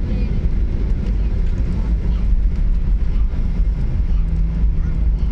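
Steady low rumble inside the cabin of a Boeing 737-900ER rolling along the runway on its landing roll, with a faint low hum joining about two seconds in.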